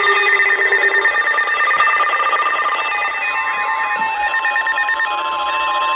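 Emergency alert attention tones: several steady electronic tones beeping and switching pitch over one another, with a single steady tone held from about halfway through. They signal an incoming severe thunderstorm warning.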